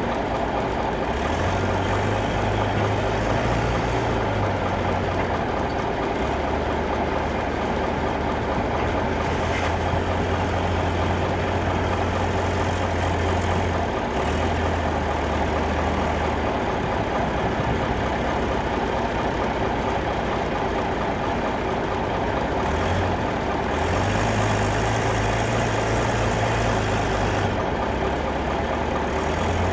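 Heavy diesel engine idling steadily close by, its low drone rising slightly in pitch twice for a few seconds.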